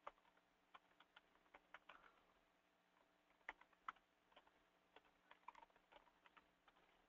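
Faint typing on a computer keyboard: irregular key clicks.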